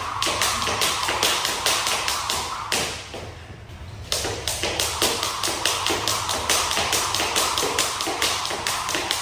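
Jump rope doing double unders, the rope slapping the wooden floor in rapid, even taps; the tapping stops for about a second about three seconds in, then starts again.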